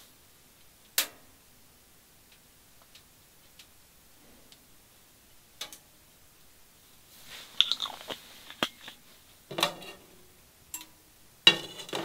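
Cookware being handled on a wood stove: a few isolated clicks, then a busier run of small clinks and rattles from a frying pan and food containers, with the loudest clatter near the end.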